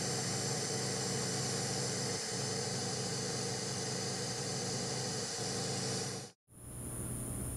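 Steady low hum with a layer of static hiss, cutting out abruptly for a moment near the end and then starting again.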